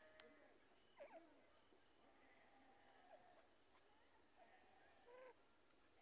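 Near silence with a few faint, short bird chirps scattered through it over a steady high hiss.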